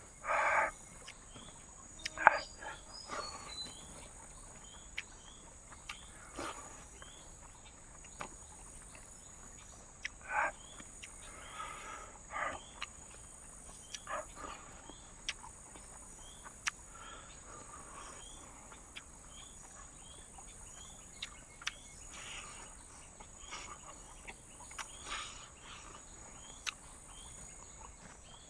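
Night insects, crickets among them, keep up a steady high-pitched drone, with a faint chirp repeating less than a second apart. Short knocks and rustles close by come and go over it.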